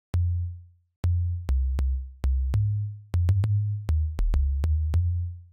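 Deep synth bass line from a tropical house bass loop: short syncopated notes that step between a few low pitches, each note starting with a sharp click.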